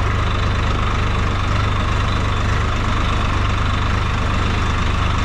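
Swaraj 855 tractor's three-cylinder diesel engine running steadily with an even low drone while the tractor is driven.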